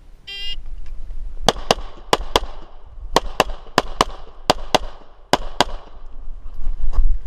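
Shot timer's start beep, then a Glock 34 9mm pistol firing 125-grain coated bullets: twelve shots in six quick pairs, about a quarter second between the shots of each pair.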